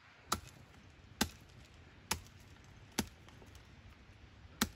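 A hand-held rock striking a metal boat chain lying on stones, five sharp blows about a second apart: an attempt to smash the chain.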